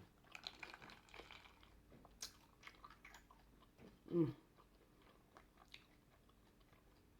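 Close-miked mouth sounds of a person chewing food, with wet clicks and crunching, busiest in the first second and a half. A brief hum of the voice about four seconds in.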